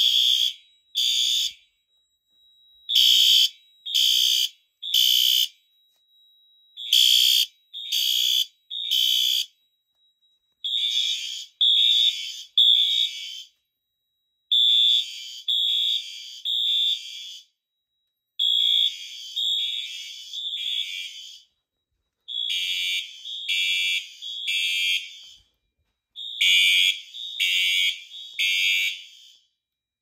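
Fire alarm horns and horn strobes (System Sensor P4R, Wheelock MT-24-LSM, FCI HE-8F-STW) sounding in full alarm in the temporal-3 pattern: groups of three loud, high-pitched blasts with a pause, repeating about every four seconds. The devices are coding themselves to temporal-3 while the panel's output is set to continuous.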